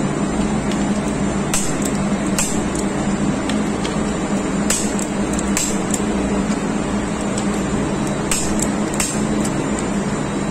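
Click-type torque wrench tightening a diesel fuel injection pump's delivery valve bolts to 60 N·m: about six sharp single clicks at irregular intervals. Underneath, a loud steady machinery drone with a low hum.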